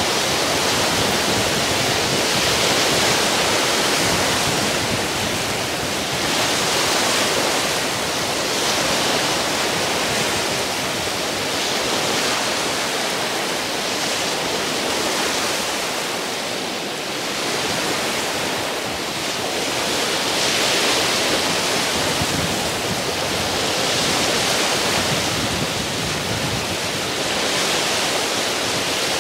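Wind-driven waves breaking and washing onto a rocky lakeshore: a steady rushing surf that swells and eases every few seconds, with wind mixed in.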